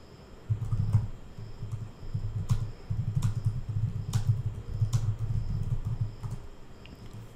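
Typing on a computer keyboard: a quick, uneven run of dull key thuds with a few sharper clicks. It starts about half a second in and stops about a second before the end.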